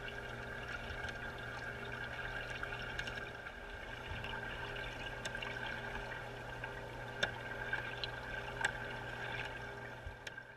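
Underwater sound in a turtle holding tank: a steady hum of several fixed pitches with faint bubbling water and a few sharp clicks.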